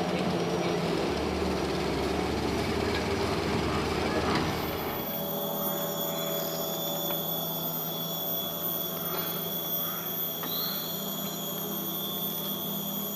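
A steady low rumbling noise that cuts off about five seconds in. It gives way to a rainforest insect chorus: several unbroken high-pitched drones at fixed pitches, with a brief chirp near the end.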